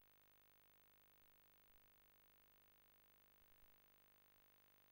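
Near silence: only a faint steady hum and hiss of the recording line.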